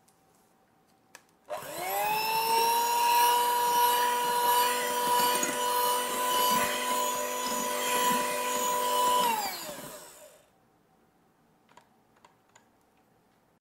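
Electric hand mixer switched on about a second and a half in. Its motor whine rises in pitch, then runs steadily as the beaters whip egg-yolk batter into meringue in a glass bowl. It winds down and stops about ten seconds in.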